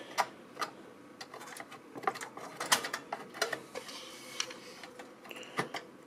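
Irregular light clicks and taps of a Zotac graphics card being pushed back into its slot against a desktop's steel case, as the card snaps into place.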